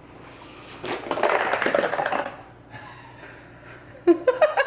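Crackling, rustling burst lasting about a second and a half as a pull-open 'cake explosion' gift box is opened and its panels and contents spring apart.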